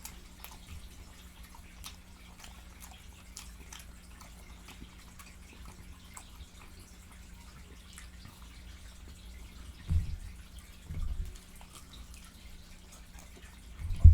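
Close-up wet mouth sounds of someone chewing food: faint, scattered smacking clicks. Two dull low thumps come near the end.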